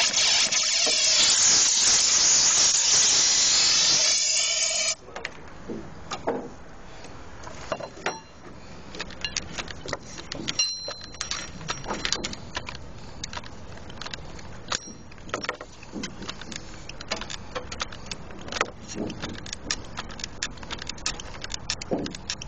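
A loud, steady rush of air cleaning out a drilled anchor-bolt hole in concrete cuts off suddenly about five seconds in. Scattered clicks, knocks and light metallic jingling from handled tools follow.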